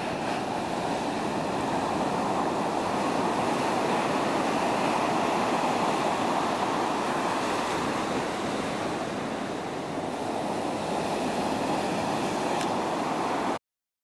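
Ocean surf breaking and washing up a sandy beach: a steady rush of water that swells and eases a little, then cuts off suddenly near the end.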